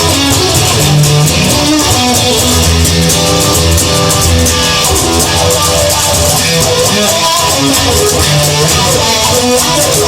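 Instrumental rock music led by guitars over a bass line, with a steady beat.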